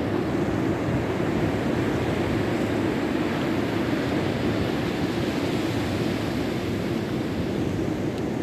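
Rough sea at high tide: surf breaking and washing in a steady, unbroken rumble.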